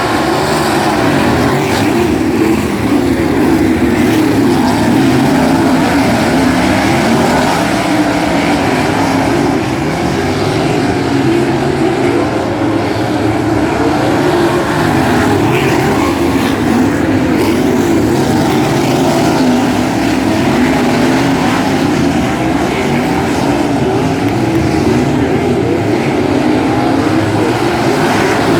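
A field of 360 sprint cars racing on a dirt oval, their 360-cubic-inch V8 engines revving over one another in a steady, loud drone of overlapping rising and falling pitches as cars come round continuously.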